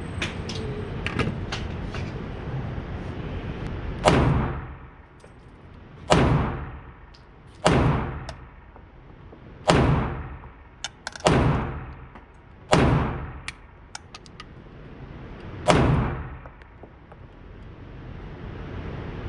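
AR-15 rifle fired seven times in slow semi-automatic fire, one to three seconds between shots, each report trailing off in a short echo. A few seconds of steady background noise and small clicks come before the first shot.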